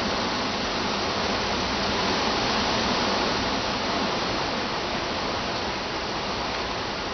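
Strong wind rushing through tree leaves and branches: a steady, noisy rush that swells a little a couple of seconds in and eases slightly toward the end.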